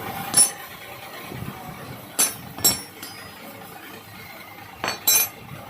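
Metal hand tools clinking against motorcycle parts during dismantling: about five sharp metallic clinks, spread out, with a short ring after each.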